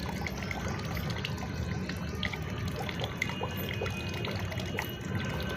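Warm water from a neti pot running through the nose during jal neti nasal rinsing, trickling steadily out of the nostril with scattered small drips.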